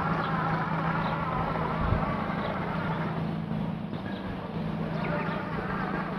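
Toadi robotic lawn mower running steadily with a low motor hum and a wavering whine, while it turns on the spot instead of mowing onward. Faint short chirps sound above it now and then.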